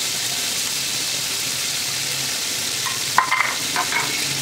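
Finger-cut carrots and raisins frying in about a cup of hot oil, a steady sizzle. A few short clinks of stirring against the pot come about three seconds in.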